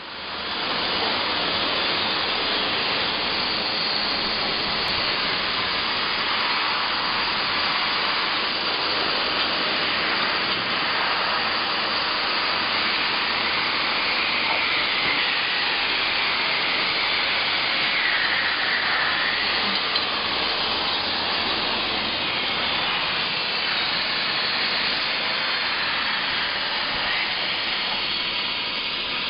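Steady hissing rush of gas burner flames heating glass tubes on a glass-working roller machine.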